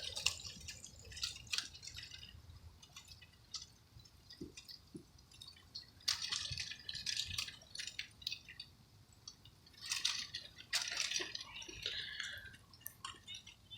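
Falling snow and wet precipitation pattering and dripping in a heavy storm: faint, irregular light ticks and patters, with busier spells about halfway through and again near the end.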